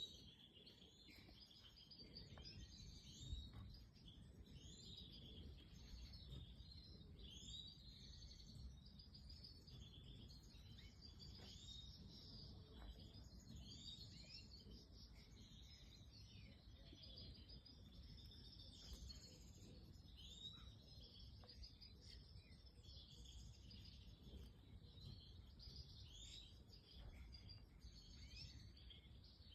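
European goldfinches of the large major form chirping and twittering, many short calls overlapping without a break, faint over a low background rumble. A single soft knock comes about three seconds in.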